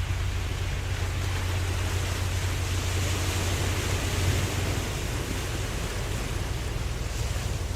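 Ocean waves washing continuously as an even rushing noise, with a steady low hum underneath.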